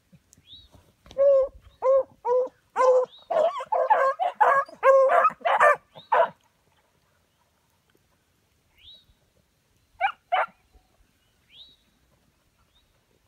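A pack of beagles barking and baying. Single barks start about a second in and build into several dogs giving voice together until about six seconds in, followed by two more barks around ten seconds.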